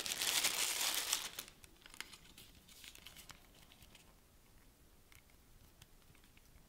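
Packaging being handled and opened: loud crinkling and rustling for about the first second and a half, then faint scattered clicks and taps.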